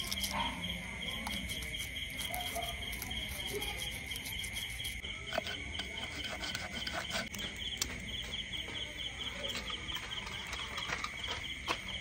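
Crickets chirping at night: one steady high trill, and a second chirp pulsing about four times a second. A few faint clicks come through now and then.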